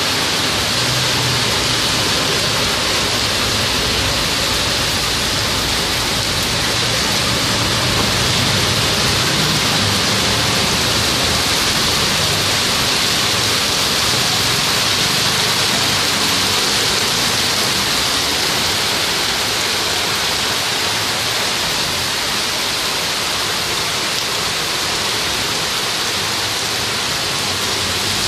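Heavy rain pouring onto a wet street, a dense steady hiss of drops hitting the water on the road.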